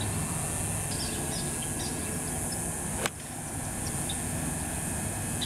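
Golf iron striking the ball from the fairway: a single sharp click about three seconds in, over steady outdoor background noise.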